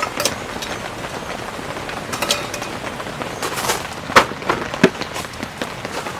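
Heavy rain falling steadily, a constant hiss, broken by irregular sharp taps and knocks, the loudest about four seconds in.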